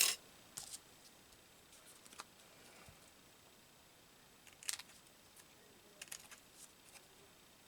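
Quiet handling of paper and small craft tools on a work table: a few short, scattered rustles and clicks, the clearest about four and a half seconds in.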